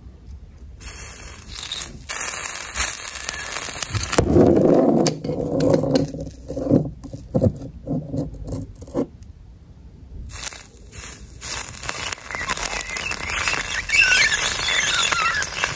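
Raw chicken wing searing under a red-hot steel ball: a loud sizzling hiss that turns into denser crackling and popping, dies down, then starts again about ten seconds in as the hot ball is set back on the wing.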